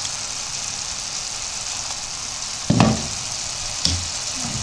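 Chicken and mushrooms sizzling in a frying pan as the last of the cooking water boils off. A dull knock comes nearly three seconds in, and a lighter one about a second later.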